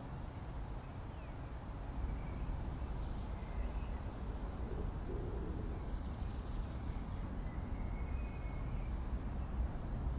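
Outdoor ambience: a steady low rumble with a few faint, short, high bird calls.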